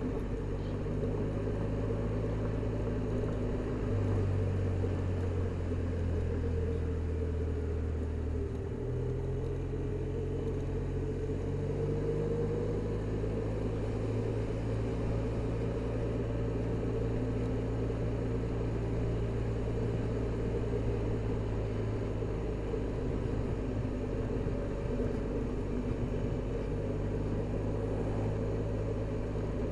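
Motor scooter's engine running while riding at low town speed, a steady hum that steps up in pitch about 4, 9 and 12 seconds in, over road and wind noise.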